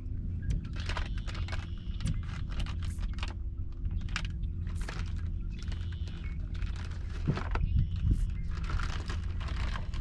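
Fishing tackle clicking and ticking irregularly as a jerk bait is cast and worked back with rod twitches and reel turns, over a steady low hum.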